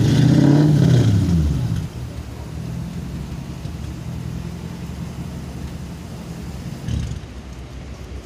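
Classic Ford Mustang fastback's engine revving at the start, its pitch rising and dropping back within about a second and a half, then idling steadily. A short thump about seven seconds in.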